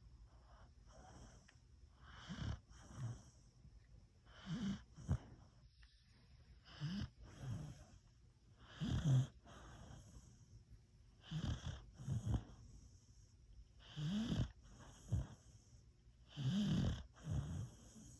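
Beagle snoring in its sleep: a rhythmic snore about every two to two and a half seconds, each breath coming in two short rasping parts.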